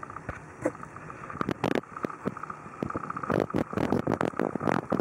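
Scratchy rustling and scraping of towel and quilted bedding in a kitten's box, in irregular bursts that come thicker and louder from about halfway through.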